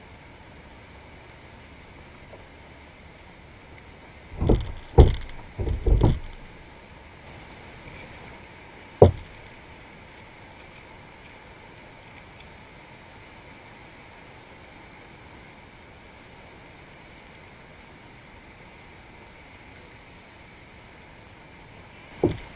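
Dull knocks and bumps in a small boat over a steady hiss: four in quick succession about four to six seconds in, a single sharp knock near nine seconds, and another near the end.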